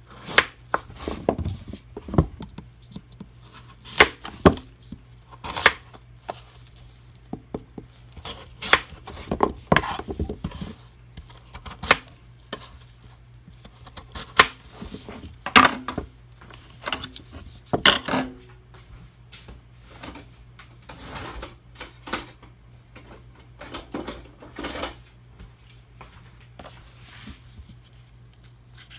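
A kitchen knife cutting raw butternut squash on a cutting board: irregular sharp knocks as the blade goes through the firm flesh and hits the board, with pauses between cuts.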